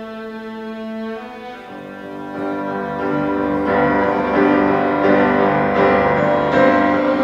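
Live chamber ensemble of two violins, viola and keyboard playing, the strings bowing held notes. The texture thickens and grows louder a couple of seconds in.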